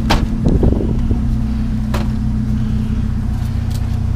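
A truck engine idling steadily, with a few sharp clicks or knocks over it: one at the start, one about two seconds in, and light ones near the end.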